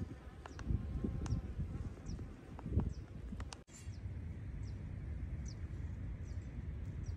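Faint outdoor ambience: a low, rumbling haze with scattered short, high, falling chirps from small birds.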